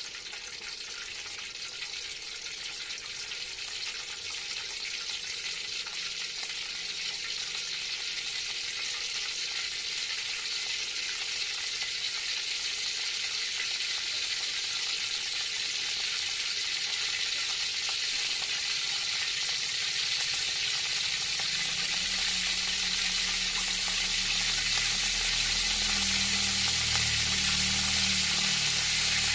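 Cooking oil sizzling in a frying pan, a steady hiss that grows louder. A low rumbling joins in about three-quarters of the way through.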